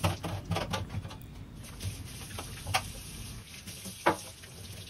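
Tap water running into a stainless-steel sink, with scattered splashes and knocks as the area beside it is scrubbed and rinsed.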